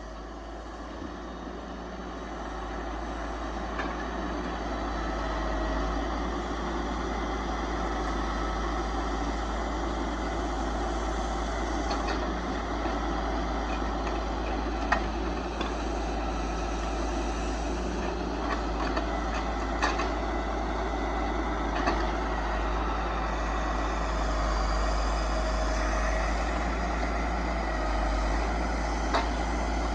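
Kenworth logging truck's diesel engine running steadily as it works the self-loader, growing louder over the first few seconds, with a few sharp knocks in the second half as cedar poles are handled.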